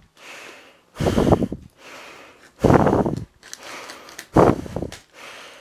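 A person breathing hard close to the microphone, one loud breath about every second and a half. Between the breaths comes a softer rustle of a plastic padded mailer being cut and torn open.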